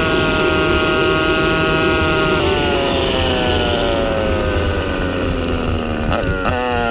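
Single-cylinder four-stroke pit bike engine at steady cruising revs. About two and a half seconds in, the revs drop and keep falling as the bike slows, with two quick blips of revs near the end. Wind rushes over the microphone.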